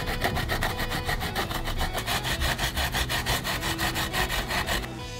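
Fresh ginger root rasped quickly back and forth on a plastic grater, about seven scraping strokes a second, stopping near the end.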